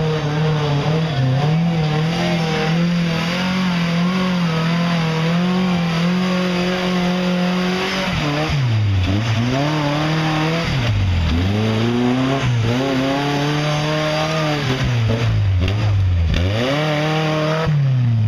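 Tube-frame rock-crawler buggy's engine revving hard as it climbs a steep slope. The revs are held high, then drop and climb back several times in the second half.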